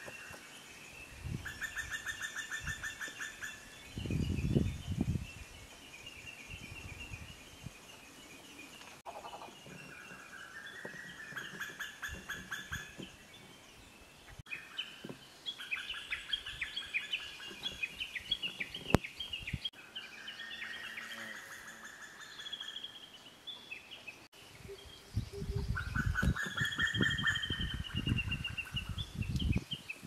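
Female Oriental cuckoo giving her rapid bubbling 'pi-pi-pi' trill, about five times, with a higher trill sliding down at the start and again near the end. Bursts of low rumble come about four seconds in and over the last few seconds.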